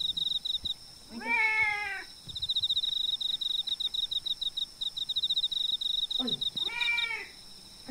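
Domestic cat meowing twice, each call about a second long and arching up then down in pitch, the first about a second in and the second about six seconds in. A steady, rapid, high-pitched chirping goes on behind them.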